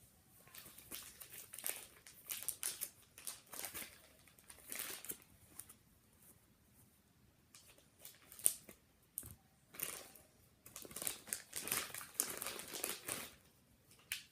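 Packaging crinkling and rustling in irregular short bursts as items are handled and unwrapped, with the sharpest crackle about eight seconds in.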